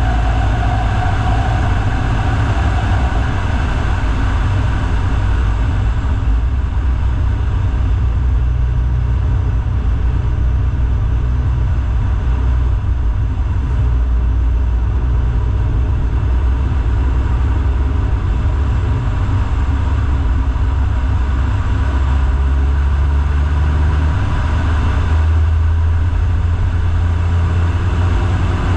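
A vehicle driving: a steady low engine and road rumble whose pitch steps a few times in the second half.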